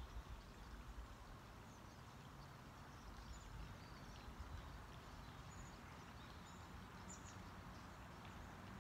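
Near silence: faint outdoor ambience with a low rumble and a few scattered short, distant bird chirps.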